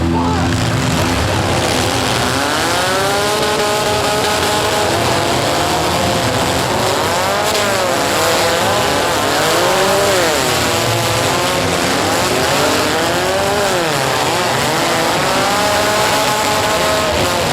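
Engines of small four-cylinder compact derby cars revving up and down again and again as they are driven hard, with tires squealing.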